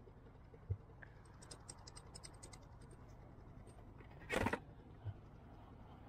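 Small handling noises close to the microphone: a soft bump, a quick run of light ticks, then a short, louder scrape about four and a half seconds in.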